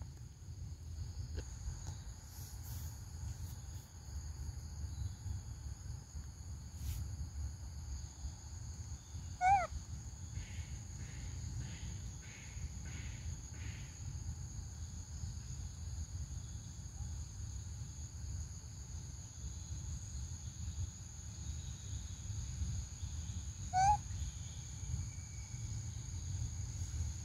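Steady high drone of forest insects over a low wind rumble, with two short pitched animal calls about fourteen seconds apart as the loudest sounds.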